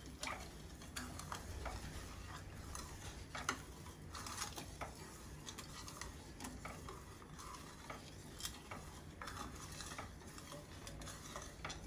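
Spatula stirring sugar and water in a kadai: quiet swishing of the water and scraping of the sugar grains on the pan bottom, with light, irregular taps of the spatula against the pan.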